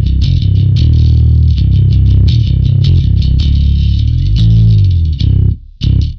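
Electric bass guitar played with a clean tone through a TC Electronic BH500 bass head and a 2x10 Celestion speaker cabinet, only a Boss limiter enhancer and an MXR bass preamp pedal switched on. A busy line of notes with sharp attacks, a sliding note about four and a half seconds in, then a brief stop and two short notes near the end.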